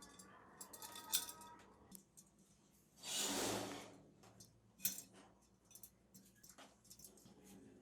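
Small metal parts and hand tools clicking and clinking as they are handled during bicycle wheel restoration, with a short hiss lasting under a second about three seconds in.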